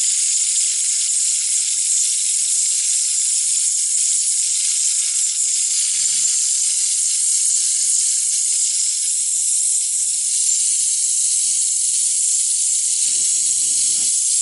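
Gas blowtorch flame burning with a loud, steady hiss as it heats the end of a copper boiler shell for soldering.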